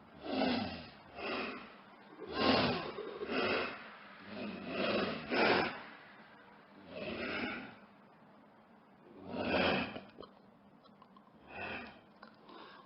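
Sound-effect predator animal giving a series of harsh, breathy snorts and growls: about nine short calls, each under a second, with uneven gaps between them.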